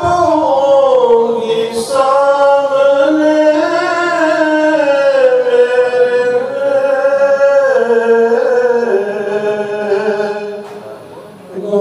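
A man singing a naat, an Urdu devotional poem in praise of the Prophet, unaccompanied into a microphone: long held notes that slide and waver in pitch, with a short breath about two seconds in and the phrase trailing off near the end before the next begins.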